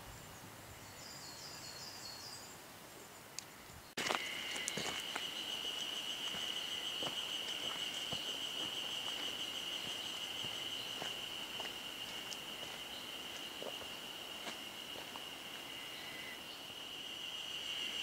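An insect droning steadily at a high pitch, starting abruptly about four seconds in. Before it starts, a few faint short bird notes.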